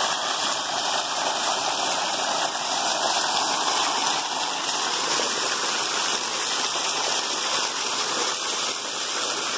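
Waterfall pouring down heavily: a steady, even rush of falling water.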